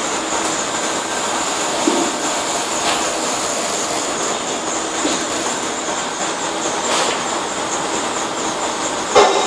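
Steady background noise of a busy driving range with a high hiss, a few faint clicks of golf balls being struck in other bays, and one sharp loud crack near the end from a club hitting a ball close by.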